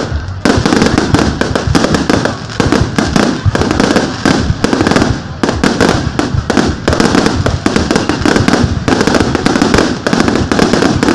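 A loud, dense fireworks barrage: bangs and crackles following one another so closely that they run together without a break.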